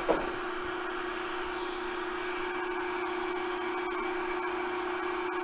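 Blower motor of a Smola / ZC Roasters BC300 fluid-bed coffee roaster running steadily with the heating element off: a rush of air with a steady motor hum. It is at a lower fan setting, drawing about 1 amp.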